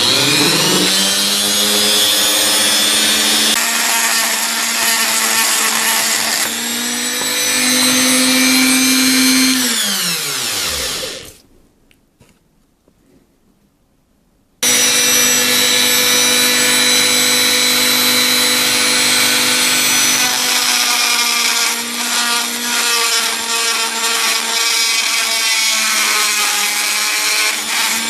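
Small high-speed rotary tool cutting plastic around a camera's lens housing. It spins up, runs with a high whine for about ten seconds, then winds down with falling pitch. After a short pause it runs again, starting abruptly, while cutting.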